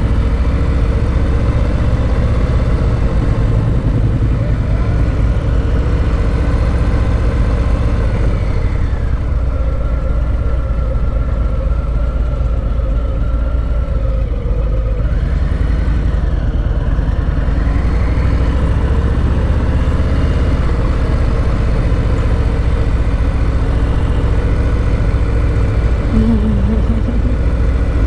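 Harley-Davidson Low Rider's V-twin engine running at low town speed, steady with some rise and fall in pitch through the middle as the throttle is opened and closed.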